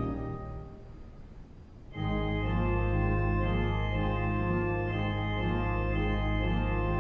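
Organ playing: a chord fades away into a brief reverberant lull, then about two seconds in a full chord enters with deep sustained bass, held notes and a moving inner line.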